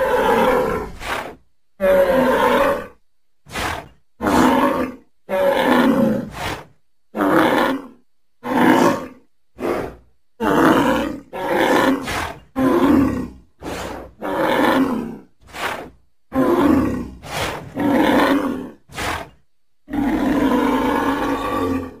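Large bovine (bull, buffalo or bison) giving a rapid series of about sixteen short, deep calls, ending with one longer call.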